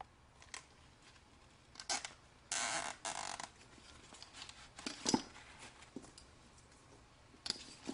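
Plastic wire ties being worked through the holes of a kneepad's frame and insert: a short zipping rasp in two quick pulls about two and a half seconds in, among scattered clicks and taps of plastic, the loudest about five seconds in.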